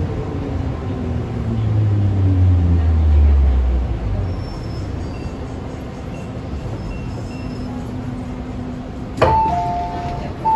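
MTR M-train electric braking whine ('鬼叫'), several tones falling in pitch as the train slows to a stop, loudest about three seconds in. After a pause with a low hum, a sharp clunk about nine seconds in, followed by the train's two-note door chime, heard twice.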